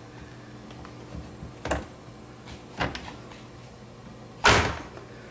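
Plastic knocks and clicks as a refrigerator icemaker assembly is pushed and snapped into place in its compartment: two light knocks, then a louder, longer clatter about four and a half seconds in, over a faint steady hum.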